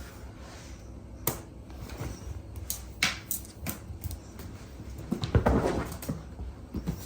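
Cats scampering and pouncing on the floor during toy play: scattered light knocks and patters, with a louder scuffling thud about five seconds in.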